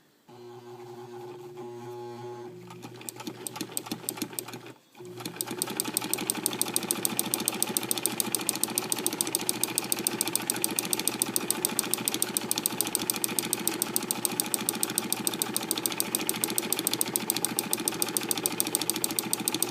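Vintage Necchi BF sewing machine starting up and stitching slowly and unevenly, stopping briefly about five seconds in, then running fast with a rapid, even rhythm of needle strokes. The machine's owner finds its speed irregular even with the pedal pressed fully down.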